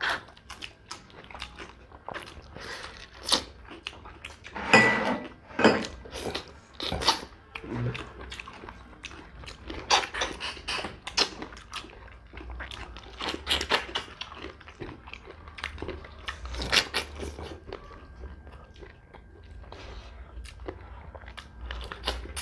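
Close-miked eating sounds of people chewing fish curry and rice eaten by hand, with many irregular mouth clicks and smacks.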